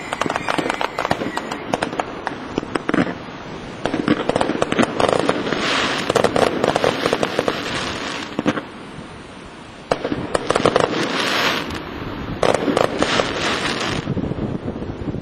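Fireworks display: aerial shells bursting, with long runs of rapid crackling and sharp bangs in several waves and a short lull past the middle.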